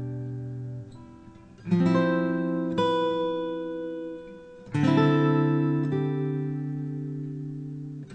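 Acoustic guitar background music: chords strummed and left to ring and fade, a new chord struck every one to two seconds.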